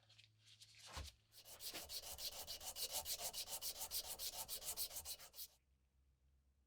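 Rapid back-and-forth hand sanding strokes, about five a second, running for about four seconds and then stopping abruptly. A single knock comes about a second in, before the strokes start.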